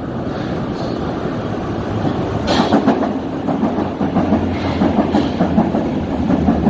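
Yellow Berlin U-Bahn train running into an underground station platform, its rumble growing. From about two and a half seconds in, the wheels clack in a quick rhythm over the rail joints as the cars pass.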